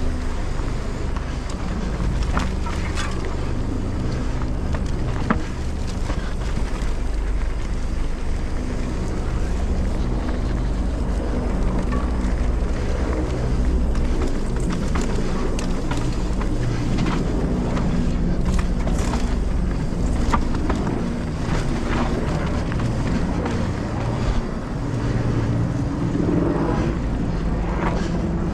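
Mountain bike rolling fast down a rough trail: steady wind noise on the action camera's microphone and tyre rumble, with frequent short knocks and rattles from the bike over rocks and roots.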